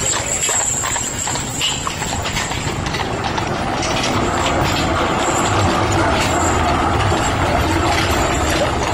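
Horse hooves clip-clopping on the road as a two-horse carriage passes. From about four seconds in, a passing tram adds a low hum.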